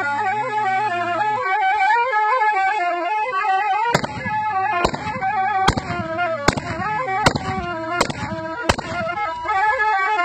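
A fast, ornamented folk melody played live on a wooden wind instrument, with a low steady drone under it at the start and end. Midway, seven sharp knocks come at an even beat, a little under one a second.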